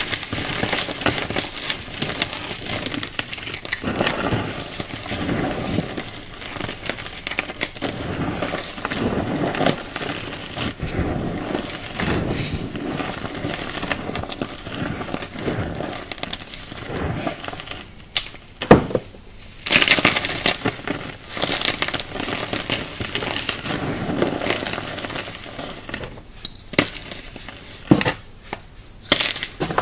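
Hands crushing and rubbing crumbly coloured chalk chunks and powder: a steady gritty crunching and crackling, with a few sharp snaps in the second half as harder pieces break.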